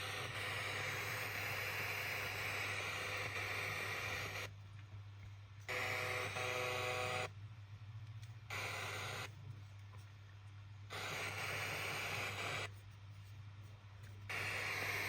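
JBL Tuner XL radio hissing with static between stations, the hiss cutting out and back in four times with short near-quiet gaps. A brief cluster of steady tones comes about six seconds in, and a low steady hum runs underneath.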